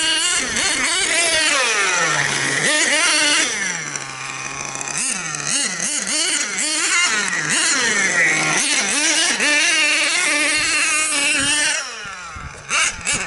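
Thunder Tiger MGT 8.0 nitro RC monster truck's small glow-fuel engine revving hard. It climbs and falls in pitch over and over with quick throttle blips as it races and jumps, and dips in loudness near the end.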